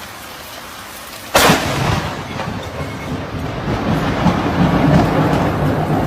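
Steady rain hiss, then about a second in a sudden sharp crack of a nearby lightning strike, followed by a long, loud rolling rumble of thunder.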